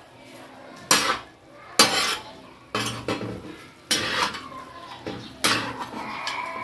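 Flat metal spatula scraping and knocking against a large metal tawa while stirring mutton pieces in oil, about five strokes roughly a second apart.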